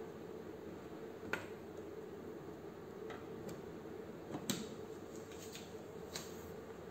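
Banana-plug jumper leads being pushed into sockets on a trainer panel: four short plastic-and-metal clicks, the loudest about four and a half seconds in, over a steady low room hum.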